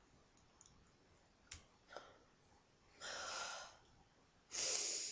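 A person breathing out sharply twice, close to the microphone, each a loud breathy puff of under a second, after two faint clicks.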